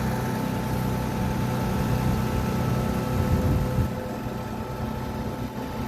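Fire engine's diesel engine running, with a steady whine over the low engine hum; the rumble grows louder about three seconds in, then drops back.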